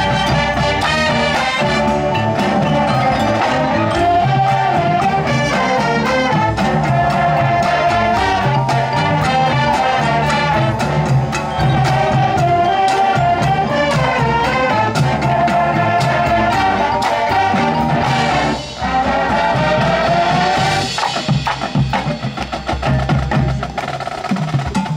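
High school marching band playing live: brass and saxophones carry a melody over drums. The sound drops out briefly about three quarters of the way through, then comes back choppier and more percussion-driven near the end.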